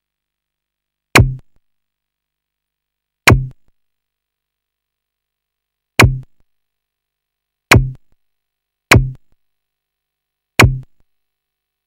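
Six sharp hit sound effects, each a crack with a low thud under it that dies away within about half a second, spaced unevenly a second or two apart with silence between.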